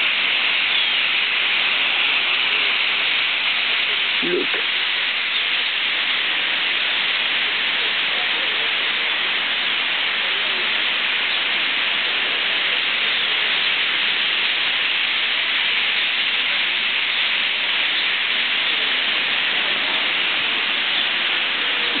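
A huge flock of European starlings calling all at once. It is a steady, dense din that blends into a hiss, flecked with countless faint high chirps.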